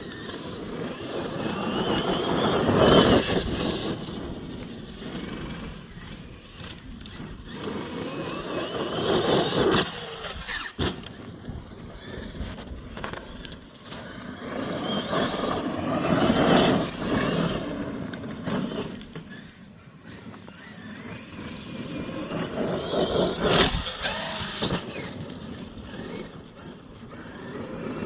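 Traxxas X-Maxx electric RC monster truck running laps on a dirt track. Its motor whine and tyre scrape swell and fade as it passes close four times, about every seven seconds.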